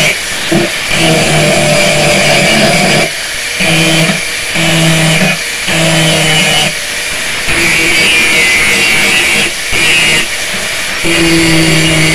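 Handheld angle grinder with an abrasive disc grinding the steel face of a large meat cleaver blade. The grinder runs throughout, worked across the steel in a series of passes of one to two seconds with brief lulls between them.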